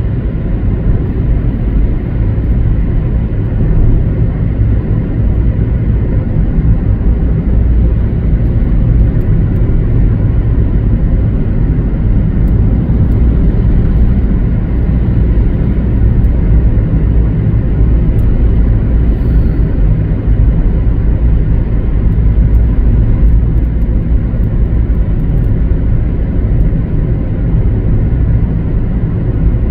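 Steady low road rumble of a car driving at speed, tyre and engine noise heard from inside the moving car.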